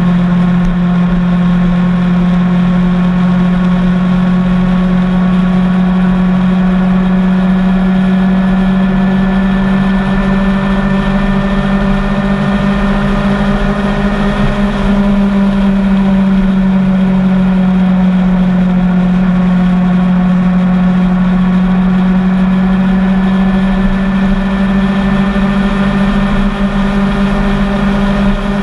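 Motorcycle engine running at a steady cruising speed: one constant droning note that rises slightly about halfway through and eases back.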